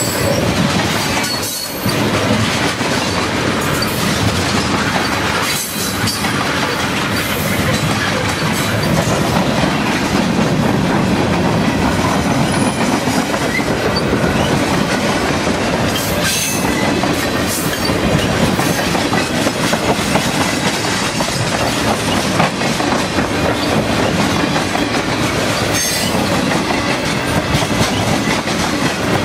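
Freight train tank cars rolling past close by, a loud, steady rumble of wheels on rail.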